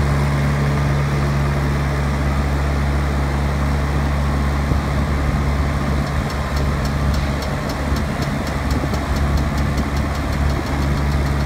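Tennant Green Machines 636 HS street sweeper's engine running steadily while the high-dump hopper is raised and tipped. About halfway through, a rapid, even ticking joins in for several seconds.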